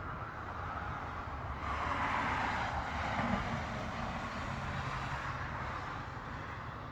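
A passing vehicle's rushing noise with a low rumble, swelling about two seconds in and slowly fading.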